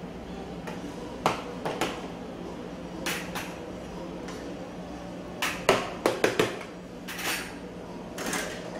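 A metal spoon clinking and scraping against a plastic food container and a small bowl as food is scooped out and portioned, in irregular taps with the sharpest cluster of clinks around six seconds in. A steady low hum runs underneath.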